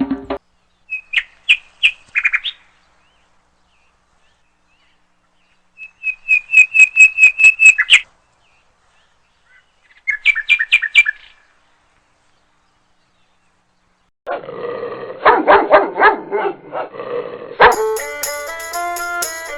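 Animal calls: three short bursts of rapid, high-pitched repeated calls separated by silences, then a louder, fuller series of quick calls. Music begins near the end.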